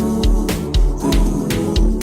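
Music with a beat of heavy bass hits and sharp percussive strikes, without vocals.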